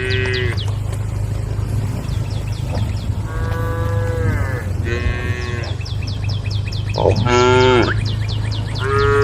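Cattle mooing, several separate calls a second or two apart, the loudest about seven seconds in, as cows call to the herd. A steady low hum and rapid repeated high chirping run underneath.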